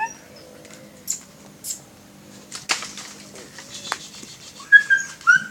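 A short rising dog whine at the very start, then a few faint scattered clicks and rustles. About a second before the end a person starts whistling a steady, loud note, calling to the dog.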